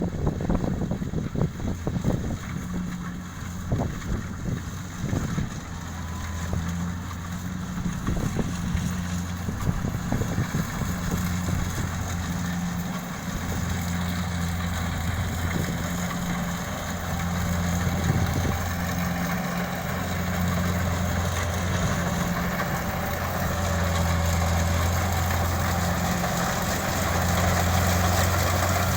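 Kubota DC-70 combine harvester's diesel engine running steadily with a low hum, with wind buffeting the microphone in the first few seconds.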